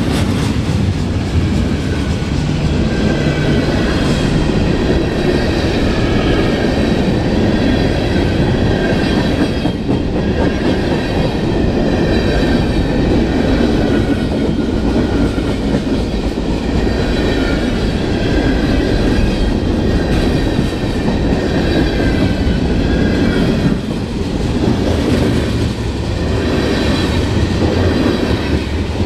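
Freight cars of a CN freight train rolling past right beside the rails: a steady, loud rumble and clatter of steel wheels on track, with a faint high wheel squeal wavering over it.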